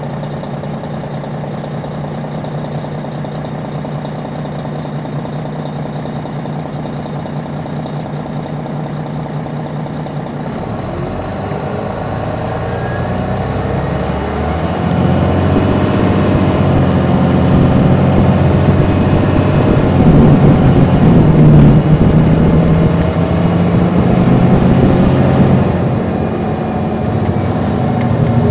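Detroit Diesel Series 60 diesel engine of a 2002 MCI D4000 coach, heard from on board. It runs steadily at first, then from about eleven seconds in climbs in pitch and gets louder as the bus pulls away harder, with a thin high whine over it. It eases off briefly near the end, then picks up again.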